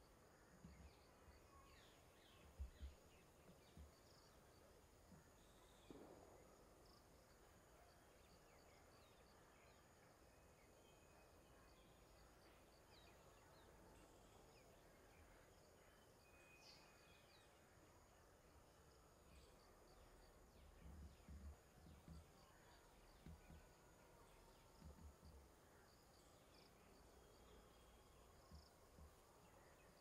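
Near silence: faint outdoor ambience with scattered faint bird chirps and insect sounds, and a few soft low thumps, a cluster of them about two-thirds of the way through.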